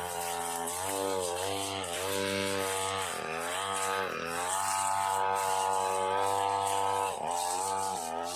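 Brush cutter engine running at high revs while its blade cuts through saplings and weeds. About five times the pitch dips briefly as the blade bites and loads the engine, then climbs back.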